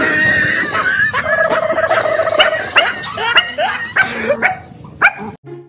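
A dog barking and yelping in alarm, with longer whining cries in between, until it breaks off about five seconds in.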